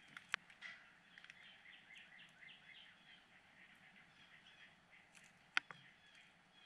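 Faint twittering of small birds, with two sharp taps on the feeder: one just after the start and a louder one about five seconds later.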